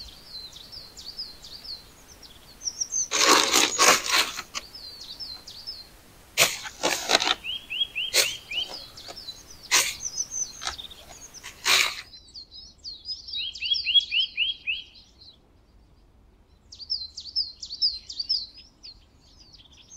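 Small songbirds chirping in repeated quick runs of notes. Several short bursts of rustling and scraping come in the first twelve seconds, the longest at about three to four seconds in.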